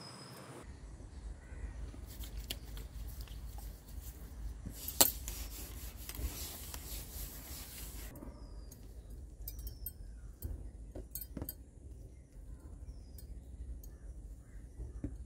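Oiled hands rubbing, pressing and spreading parotta dough on a flat work slab, with small clicks and scraping and a single sharp knock about five seconds in. A few short falling bird chirps sound now and then.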